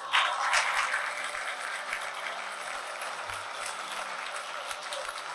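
Audience applauding, loudest in the first second and then settling into steady clapping.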